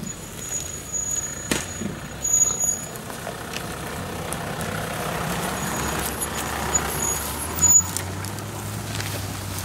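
Toyota Land Cruiser SUV driving slowly past over forest floor: low engine running that grows louder as it nears, with tyres crunching through leaf litter and a few sharp cracks of snapping twigs.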